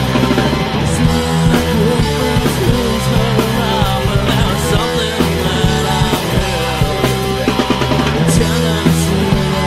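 Rock band playing a song, guitars and drums at a steady loud level, on an old, poorly recorded tape.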